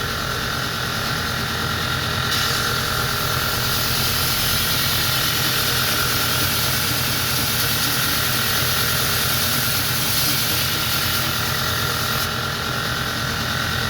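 Belt grinder running steadily with an 80-grit belt. From about two seconds in until near the end, the bill hook's edge is held against the slack belt, adding a grinding hiss.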